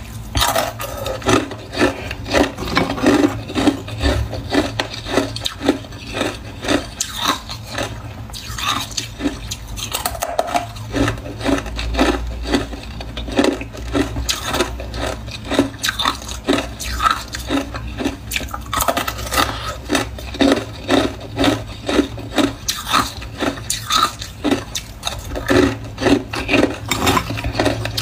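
Frozen cola ice bars being bitten and chewed: a continuous run of crisp cracks and crunches, several a second.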